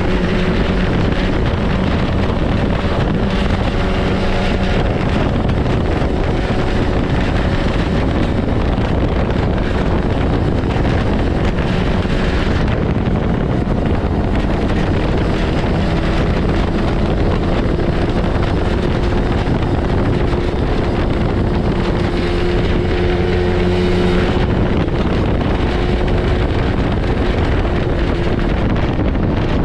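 Yamaha Bravo snowmobile's two-stroke engine running at a fairly steady cruising pace, its pitch drifting a little as the throttle changes, with wind rushing over the microphone.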